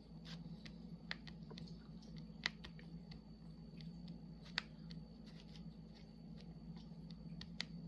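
Faint, irregular small clicks and taps of a diamond-painting drill pen and resin drills on the sticky canvas, a few sharper ticks standing out, over a steady low hum.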